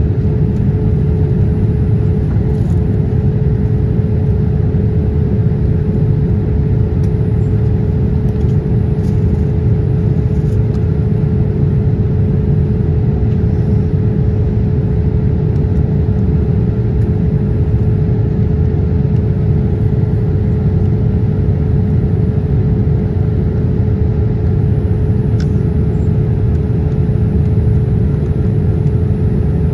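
Boeing 787-8 cabin noise heard at a window seat over the wing during the climb: a steady roar of engines and airflow with a constant hum running through it.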